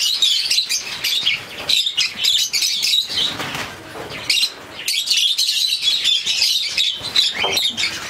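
A flock of rosy-faced lovebirds chattering and squawking, with wings flapping as birds take off and flutter. The chatter thins out about three seconds in and picks up again a second or so later.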